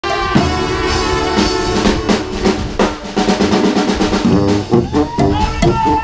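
Street brass band playing live: trumpets, trombones, saxophones and sousaphone over drums. Long held brass chords with drum hits, then shorter repeated notes from about three seconds in.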